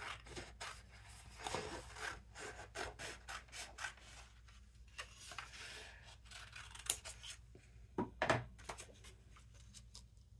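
Sheets of cardstock being handled and slid over a plastic die-cutting plate: crisp rustling and rubbing strokes, a sharp click about seven seconds in and a few louder knocks a second later.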